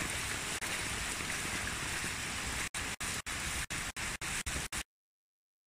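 Floodwater rushing in a strong current over a submerged road, with heavy rain falling: a steady rushing hiss. The sound drops out briefly several times in the second half and cuts to silence near the end.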